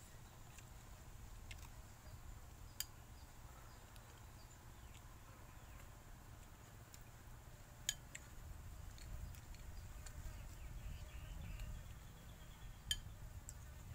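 Metal spoon clinking against a ceramic soup bowl: three sharp clinks spaced several seconds apart, over a faint low rumble.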